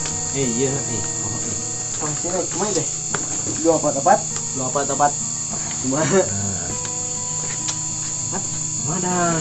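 A dense chorus of crickets keeping up a steady high chirring, with short stretches of a voice rising and falling over it.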